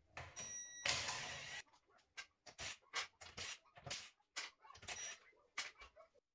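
A cordless power tool runs on the car's wheel bolts for about a second and a half, then a string of short sharp clicks and knocks follows as the bolts are worked loose.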